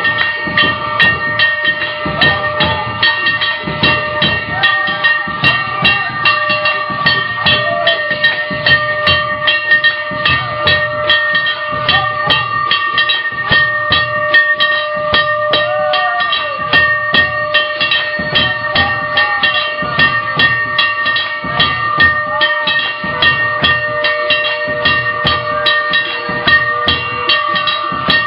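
Hindu temple aarti: metal bells clang continuously and percussion strikes in a fast, even rhythm, with several steady ringing tones sustained throughout.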